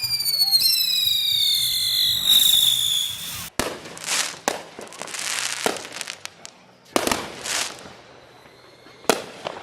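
Neighbourhood fireworks going off. Two whistling rockets glide down in pitch over the first three seconds and cut off suddenly. After that comes a string of sharp bangs and crackling bursts, spaced about a second apart or less.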